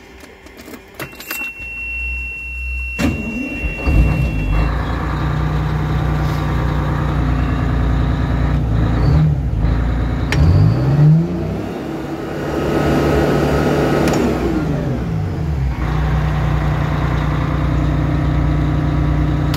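Detroit Diesel 6V92 two-stroke V6 diesel cranking and catching about three seconds in, with a steady high warning tone that cuts off soon after it starts. It settles to idle, then is revved twice from the accelerator pedal, the second rev longer and held near wide-open throttle before falling back to idle: the pedal's new throttle position sensor is responding normally, with no surging.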